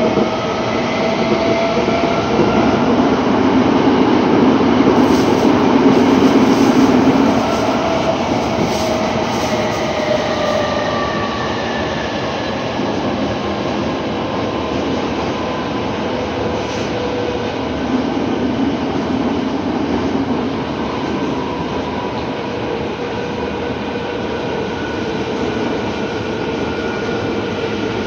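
Tokyo Metro 07 series subway train running through a tunnel, heard inside the car: a loud, steady rumble of wheels on rail with several whining tones that slowly fall in pitch as the train slows toward the next station.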